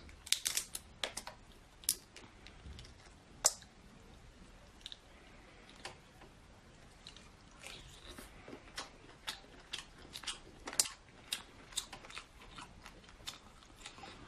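Close-up sounds of boiled lobster being eaten: hard shell crackling and clicking as fingers pick and peel it, mixed with chewing. The clicks come irregularly, with a few sharper snaps about half a second in, around two and three and a half seconds, and again about eleven seconds in.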